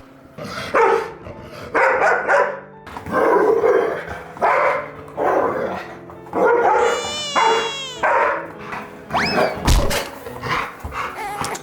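A dog barking over and over, about once a second, with a high whining cry about seven seconds in.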